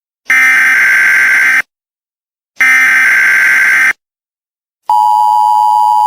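Emergency Alert System tones: two harsh, buzzy bursts of SAME header data, each just over a second long with about a second of silence between them, then, about a second after the second burst, the steady two-tone EAS attention signal begins.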